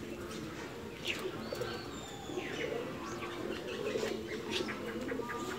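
Birds cooing continuously, with short high chirps over it and a few sharp clicks.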